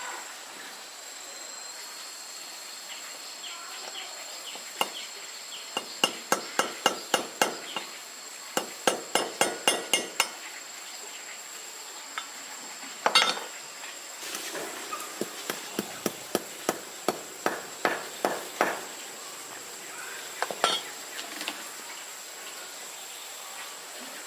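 A hammer striking repeatedly during a motorbike repair, in runs of about three blows a second, with one harder blow in the middle and a few more near the end. A steady high insect drone sounds behind it.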